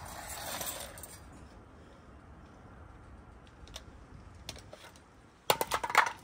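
Light clicking and clinking of small hard objects being handled. A short rustle at the start and a few single clicks are followed near the end by a quick, louder cluster of sharp clicks.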